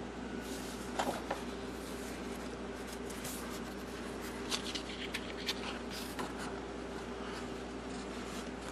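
Thick, glossy brochure pages being turned and handled: paper rustling and rubbing, with a couple of sharp crisp snaps about a second in, over a faint steady hum.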